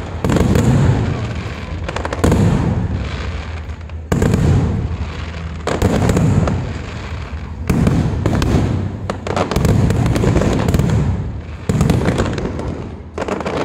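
Aerial fireworks shells bursting one after another, a loud bang about every one and a half to two seconds, each trailing off in a fading rumble with crackling.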